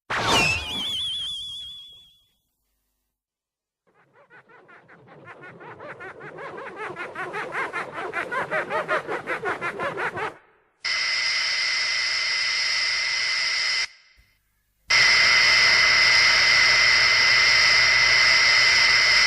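A run of separate Mothra sound effects. First a sudden shrill cry with a warbling trill. Then a rapid pulsing that grows steadily louder over several seconds and stops abruptly, followed by two steady hissing blasts with high ringing tones, the second one louder.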